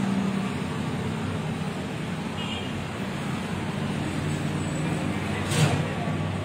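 Steady road traffic noise with engines running, and a brief louder sharp noise about five and a half seconds in.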